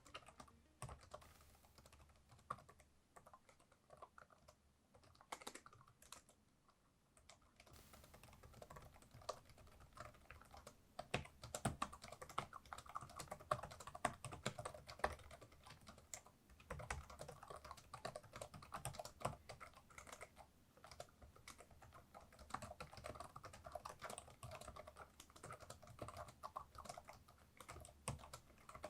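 Typing on a laptop keyboard. Scattered key taps at first, then steady, fast typing from about eight seconds in.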